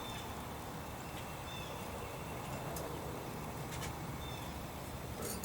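Steady low outdoor rumble with a few faint, short high chirps and several light clicks spread through it.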